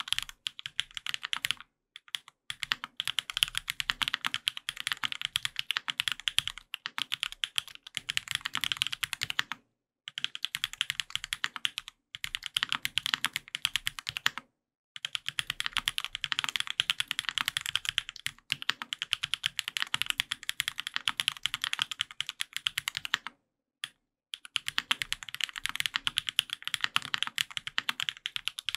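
Fast typing on a Sangeo 65 custom mechanical keyboard with lubed Durock POM linear switches on an aluminum plate and GMK keycaps: a dense run of crisp keystroke clacks, broken by a few brief pauses.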